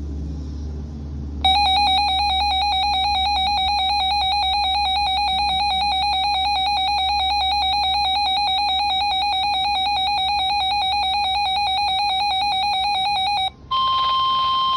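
Weather-radio alert tones between two severe thunderstorm warnings: a loud electronic alarm tone warbling rapidly between two pitches for about twelve seconds, then after a brief break a steady single-pitch alert tone begins, the warning alarm tone that opens the next NOAA Weather Radio warning.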